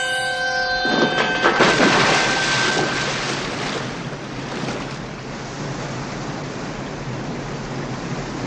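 A clatter of a body tumbling on a metal spiral staircase, loudest about a second in and lasting around two seconds, gives way to the steady rush of water pouring over a large circular cascade. A held chord fades out just as the clatter begins.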